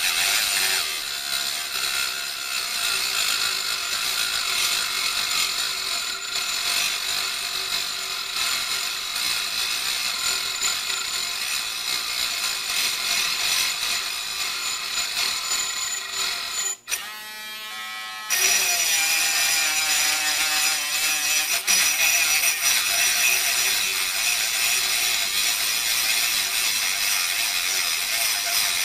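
Harbor Freight Drill Master mini rotary tool with a cutoff wheel grinding into a nail held in a vise, its motor whining steadily. The cut goes very slowly, the small motor lacking the power to get through the nail quickly. About two-thirds of the way through, the sound drops away for about a second and a half, then the grinding resumes.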